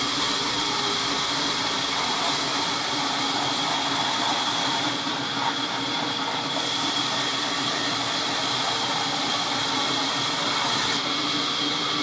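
Large vertical sawmill band saw running steadily with a constant high whine as a red mahogany log is fed into the blade for cutting.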